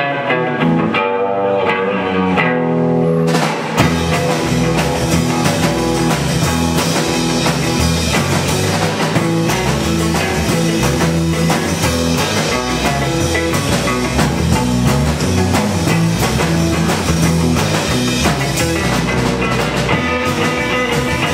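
Live rock band playing: an electric guitar plays the intro alone, then about four seconds in the drum kit and bass guitar come in and the full band plays on.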